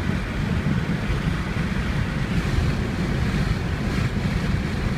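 Steady road and wind rumble inside the cabin of a 2001 Buick Century cruising at about 65–70 mph on the highway.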